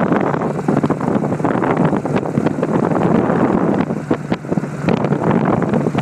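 Loud, gusty wind buffeting the microphone on a moving motorcycle with sidecar, over a steady low running noise from the bike and road.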